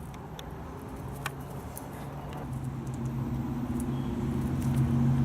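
A motor vehicle's engine hum, a low steady note growing steadily louder as it approaches.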